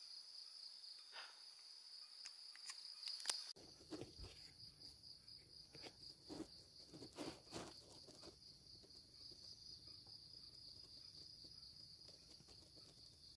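Faint, steady chirring of insects, like crickets, with a few faint clicks a few seconds in.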